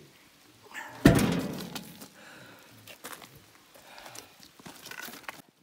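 A heavy wooden thud about a second in, then a few lighter knocks: a log landing on and shifting against the steel bed of a portable sawmill.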